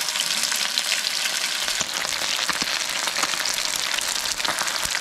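Custard-dipped, panko-crumbed fish pieces frying in hot oil: a steady sizzle, thick with fine crackling pops.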